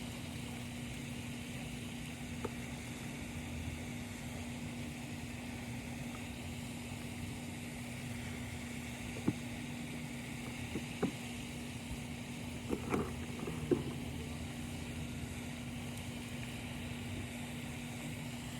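A steady mechanical hum with one constant low tone over a background hiss. A few small clicks and knocks come about halfway through.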